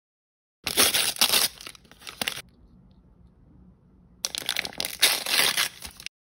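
Thin plastic L.O.L. Surprise blind-bag wrappers crinkling and tearing, in two bursts of about two seconds each with a short lull between, starting and stopping abruptly.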